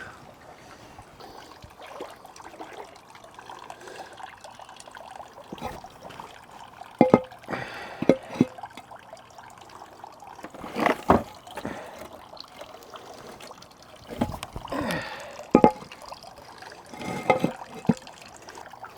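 Water trickling steadily at a garden pond, broken by several sharp knocks of rocks being set down on one another.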